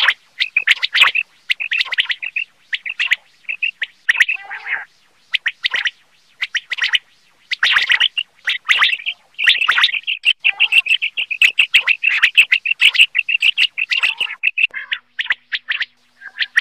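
Common quail (batair) calling: runs of short, sharp, high notes, some pitched lower with a rough edge, broken by brief pauses. About ten seconds in, this becomes a long, fast, even run of notes lasting five seconds or so.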